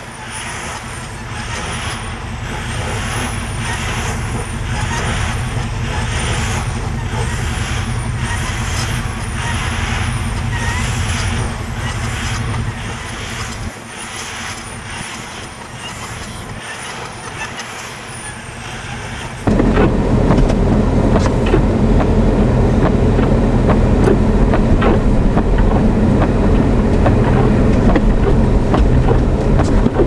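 Semi-truck tractor stuck in deep snow, its diesel engine running under load as the drive wheels spin, with a high tone rising and falling about once a second. About two-thirds of the way in it cuts abruptly to loud wind buffeting the microphone.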